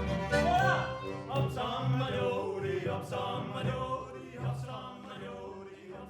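Music with voices singing over a steady low beat, gradually fading out.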